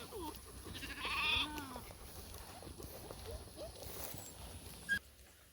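A wavering, high-pitched animal cry about a second in, followed by a few faint short calls. A short sharp sound comes near the end, and then the background drops away suddenly.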